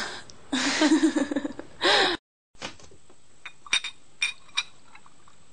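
A woman laughing, in a loud pulsing voice, for about two seconds. Then, after a short silence, a few light clinks of dishes and utensils.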